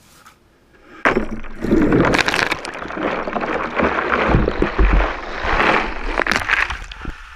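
Ice and water splashing and churning in a plastic bucket, starting abruptly about a second in and going on noisily, with some cracking of ice.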